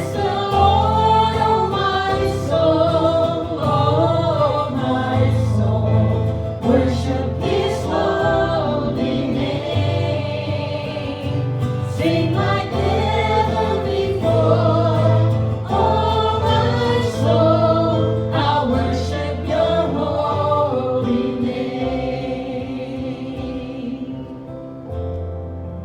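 A group of voices singing a worship song over instrumental backing with sustained bass notes, getting a little quieter near the end.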